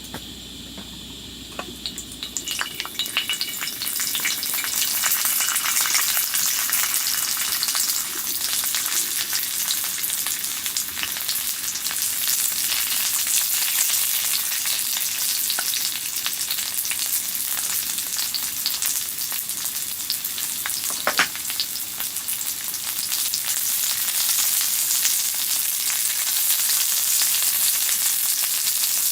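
Food frying in a hot pan: a dense sizzle that swells up about two to four seconds in and then holds steady. One sharp pop stands out about twenty seconds in.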